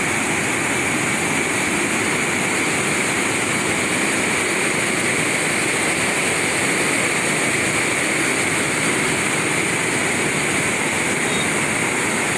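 Muddy floodwater of an overflowing stream rushing and churning, a steady, unbroken rush of noise.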